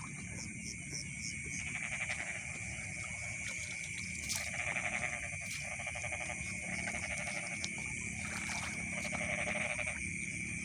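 Frogs calling in a rice paddy at night: repeated trains of rapid croaks, each about a second long, over a steady high-pitched trill.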